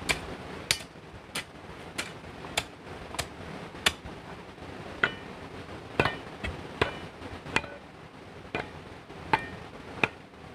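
Hammer blows working stone: a run of sharp, evenly spaced strikes about every two-thirds of a second, some with a brief metallic ring, with a short pause around the middle.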